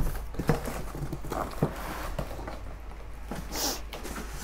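Mikasa dinnerware being handled and set down: a handful of scattered light knocks and taps, irregularly spaced, with a brief rustle about three and a half seconds in.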